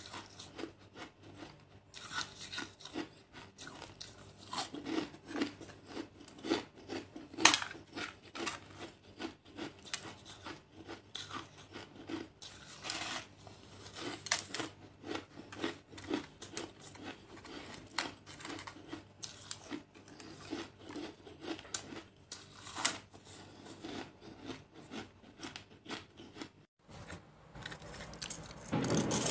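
Frozen shaved ice crunched and chewed in the mouth at close range: a dense run of irregular crackling crunches, with one sharper, louder crack about seven seconds in.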